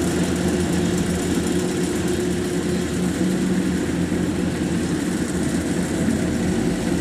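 Kubota DC-93 Xtra combine harvester's diesel engine running steadily under load as the machine cuts and threshes rice, an even drone with no change in pitch.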